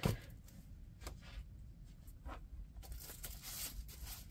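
Faint rustling and scattered soft ticks from diamond painting canvases and their packaging being handled and shuffled.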